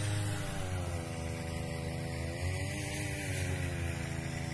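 A steady motor hum whose pitch slowly rises and falls, over a low steady hum and hiss.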